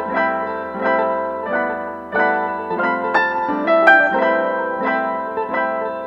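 Background music played on a piano-like keyboard: notes or chords struck about every half-second, each ringing and fading.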